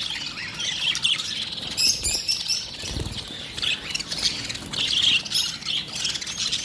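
Lovebirds chattering: quick runs of high-pitched chirps and squawks, repeated throughout.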